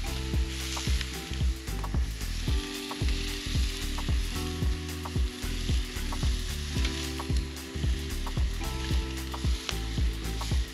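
Chicken pieces sizzling on a wire grill grate over campfire coals as metal tongs turn them. Frequent sharp clicks, about two a second, sound over the steady hiss.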